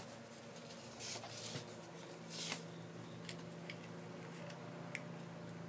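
Faint scraping and rustling handling noises, twice briefly, with a few soft ticks, over a steady low electrical hum, from tools being worked against a solder joint at a workbench.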